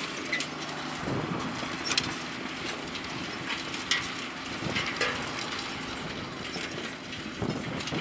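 Two tractors, a New Holland TM120 and a John Deere 6620, running steadily under load while ploughing, with sharp clicks and knocks every second or so.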